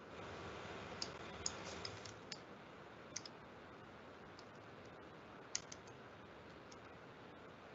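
Faint computer keyboard typing: short runs of sharp key clicks, about a second in, around three seconds in and again around five and a half seconds in, over a low steady hiss.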